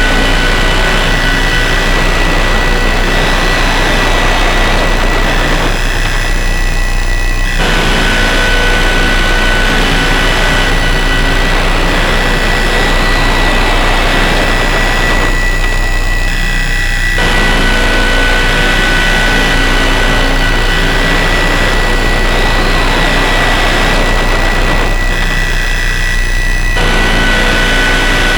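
Harsh noise drone from DIY noise synths run through distortion pedals: a loud, dense wall of distorted noise with steady high whistling tones and a low hum underneath. It repeats as a loop about every nine to ten seconds, thinning out briefly in the lower range once each cycle.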